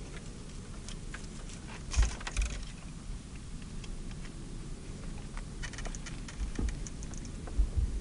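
Porcupine feeding in a hawthorn bush: two clusters of small crisp clicks and crackles over a steady low rumble. A few low thumps stand out, the loudest about two seconds in and just before the end.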